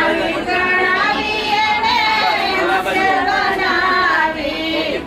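A high voice singing long held notes that slide in pitch.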